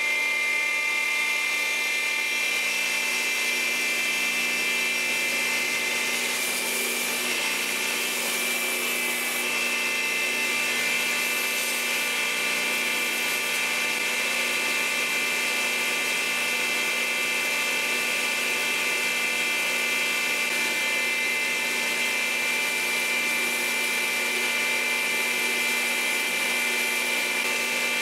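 Electric power tool running steadily with a high whine, shaping a G-10 knife scale; its pitch steps up slightly about nine seconds in.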